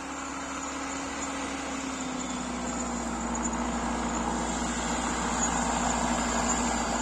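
Diesel engine of a Rottne Rapid forest machine running steadily, with a low hum and a steady drone. It grows louder to about six seconds in, then eases off a little.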